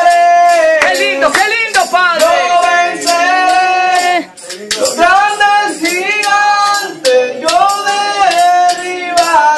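A man singing a Spanish-language worship song through a handheld microphone, holding long notes that bend in pitch, over a backing track with a steady rattling percussion beat.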